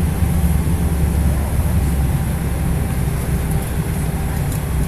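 Boeing 777-300 cabin noise while taxiing: a steady low engine rumble with a high hiss over it.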